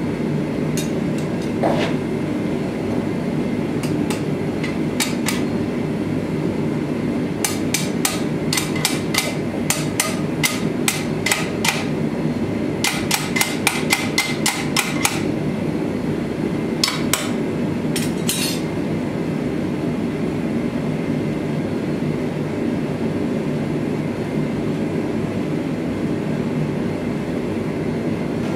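Sharp metal-on-metal hammer strikes on a red-hot steel sword guard being bent in a vise, in quick runs of about three a second, chiefly between a quarter and half way through and again in two short pairs a little later. A steady low rumble runs underneath throughout.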